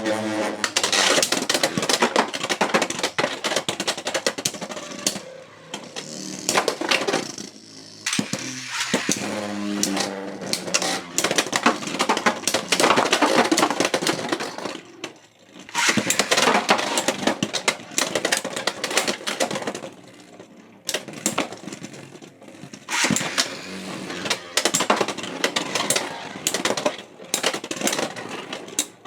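Beyblade X spinning tops battling in a stadium: Pegasus Blast clashing with rival tops in rapid, rattling clatter, in several rounds broken by short pauses.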